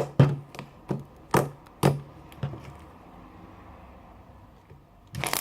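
Thick glue slime, made from white and clear Elmer's glue, clicking and popping as it is squeezed and kneaded by hand: about six sharp pops in the first two and a half seconds, then a quieter stretch before another cluster of pops near the end.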